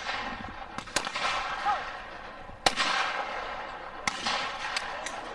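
Shotgun shots at clay targets on a trap line: three sharp reports about a second and a half apart, each trailing off in a long echo.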